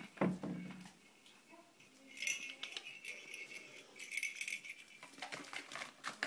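Pet ferrets scampering and tussling on a tiled floor: short rattling, jangling bursts and quick clicking taps, with a brief low bump near the start.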